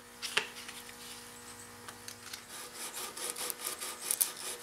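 100-grit sandpaper rubbed by hand over a teak knife handle in quick back-and-forth strokes, about three or four a second, growing plainer halfway through. A single light knock comes just after the start, and a faint steady hum runs underneath.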